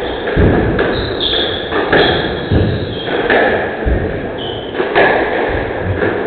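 Squash rally: the ball cracking off rackets and walls in a quick run of hits, about one every half second to second, with short high shoe squeaks on the court floor between them.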